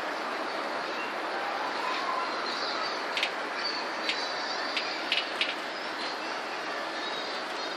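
Heavy rain falling with a steady hiss, with birds chirping over it and a few sharp ticks, like drops hitting something hard, in the middle.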